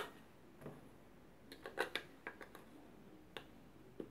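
Clicks and light plastic knocks of rechargeable AA batteries being pressed into the spring contacts of a plastic battery compartment. A sharp click comes right at the start, then several lighter clicks, bunched about halfway through.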